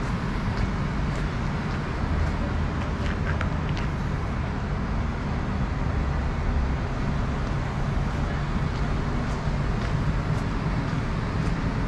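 City street ambience: road traffic running past with a steady low rumble, and a few faint clicks.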